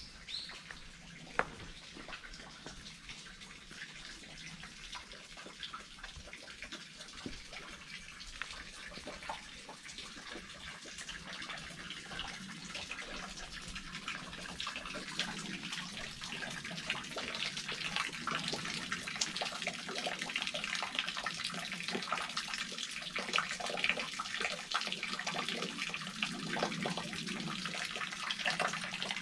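Water trickling and splashing into a small stone spring basin, a dense patter that gradually grows louder.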